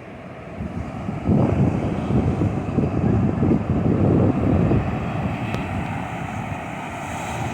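Strong wind buffeting the microphone in gusty low rumbles, loudest from about a second in to halfway through, with ocean surf beneath.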